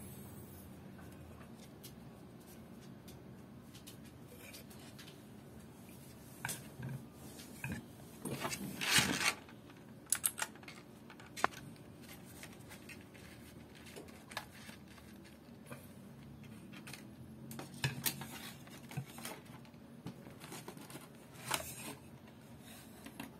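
Unboxing handling noises: plastic packaging rustling and tearing, loudest in a burst about eight to nine seconds in, with scattered clicks and taps between long quiet stretches.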